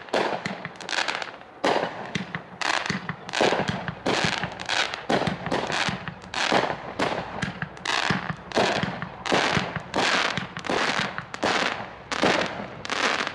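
A 36-shot, 500-gram consumer firework cake firing, its shells bursting in quick succession with a sharp bang about twice a second, each trailing off in a short smear of noise.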